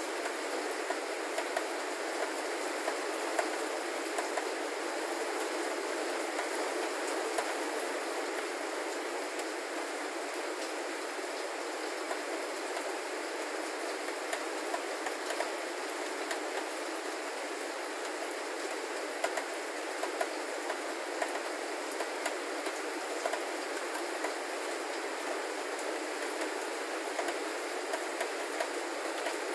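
Heavy rain falling steadily: a dense, even hiss with frequent sharp ticks of drops striking close by.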